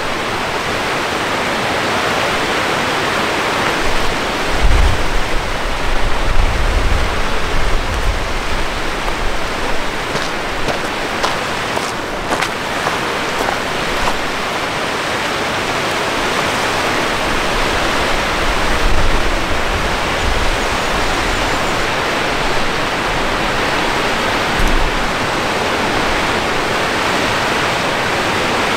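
Mountain river rushing steadily, an even whooshing of fast water. Low rumbles on the microphone swell a few times, about five seconds in and again around nineteen seconds.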